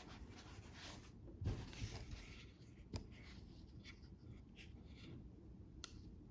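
Quiet rustling and handling noises, with a soft thump about a second and a half in and a couple of sharp clicks later: the headphones and their packaging being handled.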